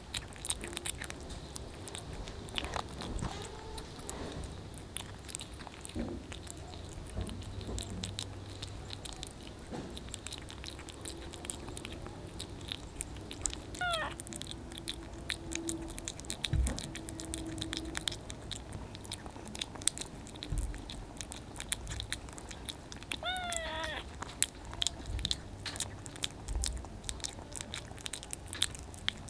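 A kitten chewing wet cat food, with a continual run of small wet clicks and smacks. Two brief mews are heard, one about halfway through and one near the end.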